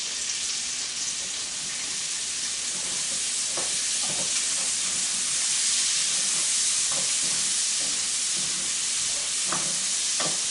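Chopped onions sizzling in hot bacon fat in a frying pan: a steady, high frying hiss, with a few light knocks scattered through.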